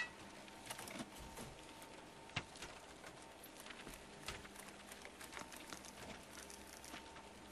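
Faint, irregular clicking of typing on a laptop keyboard, with a few slightly louder clicks.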